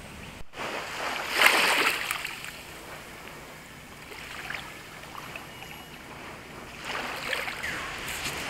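Small waves washing against shore boulders, a steady rush of water, with a louder surge about a second and a half in and a few short high chirps.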